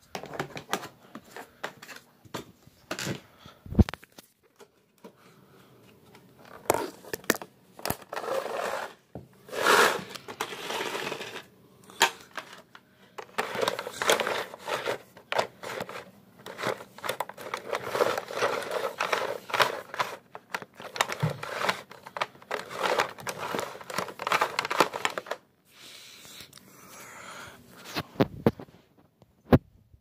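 Irregular rustling and crinkling close to the microphone, broken by scattered sharp clicks and knocks, coming in stop-start patches: things being handled around an upright vacuum cleaner, which is not running.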